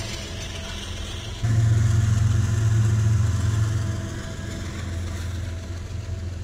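Diesel freight locomotives passing at close range, with a steady low engine drone that jumps abruptly louder about a second and a half in.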